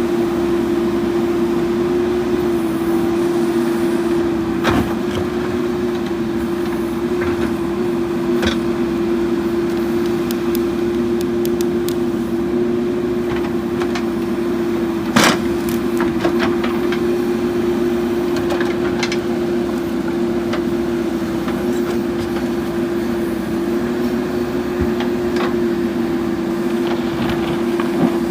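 Diesel engine of a JCB 3DX backhoe loader running steadily at a constant speed, with a few sharp knocks, the loudest about halfway through.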